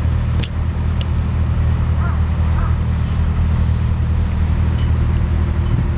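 Steady low droning hum, with two sharp clicks near the start and a few faint short bird calls about two seconds in.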